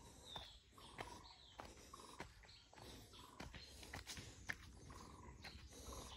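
Faint, short bird chirps repeating every second or so, with occasional footsteps and clicks on a dirt path.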